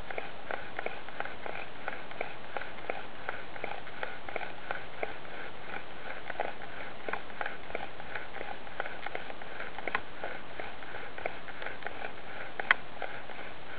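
Bow drill in use: a seasoned yellow pine spindle grinding in a yellow pine hearth board, driven by steady back-and-forth strokes of the bow, about three strokes a second. A single sharp click stands out near the end.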